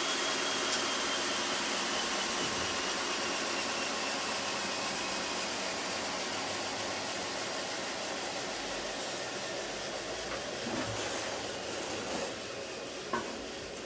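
An electric motor spinning down after being switched off: a steady whirring hiss with a whine that slowly falls in pitch, fading gradually. A short click comes near the end.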